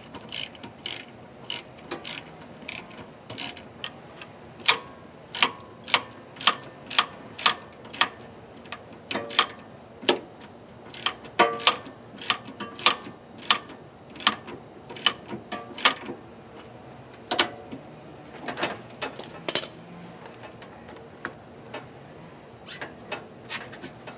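Sharp clicks and taps from hand tools on metal, coming in irregular runs of about two a second, as parts are fastened under the car's hood.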